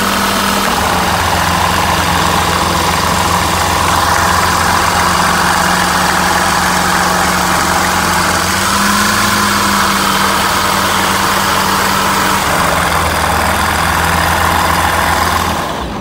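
Rotax 912 iS four-cylinder engine of a Van's RV-12iS light aircraft running steadily at low power on its first run, propeller turning, then shut down just before the end.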